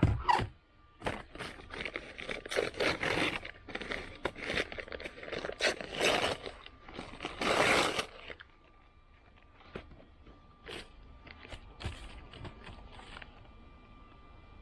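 Brown paper takeaway bag rustling and crinkling as it is torn open and pressed flat, a run of irregular scrapes and crackles, loudest about seven to eight seconds in. After that, only scattered light taps and rustles.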